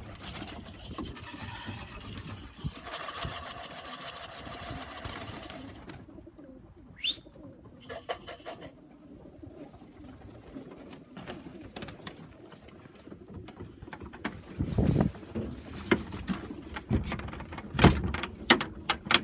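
Pigeons cooing in a loft, over rustling noise that stops about six seconds in, with a short rising whistle and a few clicks.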